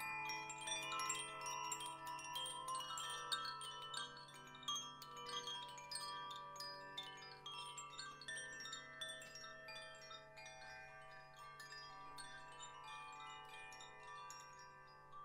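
Wind chimes ringing in a dense shimmer of many quick strikes and overlapping tones, thinning and fading gradually toward the end. A steady low hum lies underneath.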